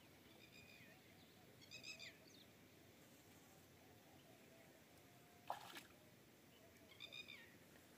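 Near silence of open-air ambience, broken by three short, faint, high animal calls, each a brief bending note, and a single sharp click about halfway through.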